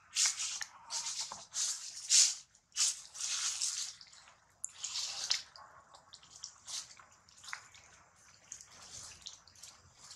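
Dry fallen leaves rustling and crackling in short, irregular bursts as macaques move on them and handle them. The crackles are louder in the first few seconds and fainter after that.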